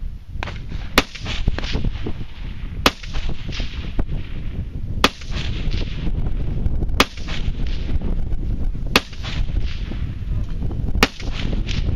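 Six single gunshots, evenly paced about two seconds apart, each a sharp crack without a long echo, over a steady low rumble.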